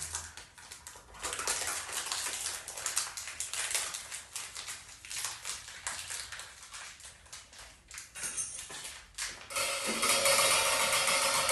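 Free-improvised drum kit played very softly: sparse, irregular light clicks and taps on the drums and hardware. About ten seconds in, a steady ringing sound with several held tones sets in and keeps going.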